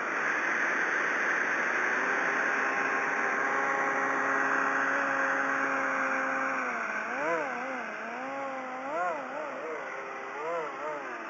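Electric motor and fan of a homemade RC hovercraft running, a pitched whine over a rush of air. The whine holds a steady pitch at first, then rises and falls several times in the second half.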